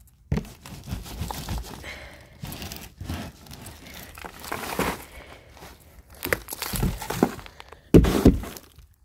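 Sand and soil being moved about in a cardboard box: irregular scraping and rustling of the cardboard, with dull thunks and a louder knock about eight seconds in.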